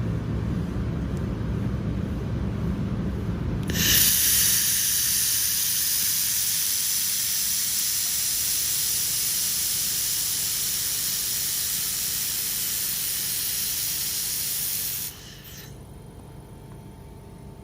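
Handheld laser welding torch blowing compressed-air shielding gas while welding: a strong steady hiss switches on suddenly about four seconds in and cuts off sharply about eleven seconds later. A low machine rumble runs underneath.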